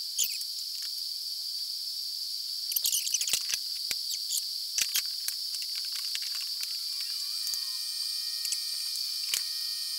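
TIG welding arc tack-welding the corners of a steel angle frame: a steady high-pitched buzz with hiss, broken by a few sharp clicks.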